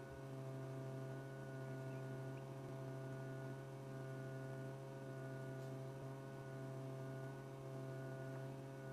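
A steady low hum with several fainter, higher steady tones above it, unchanging throughout.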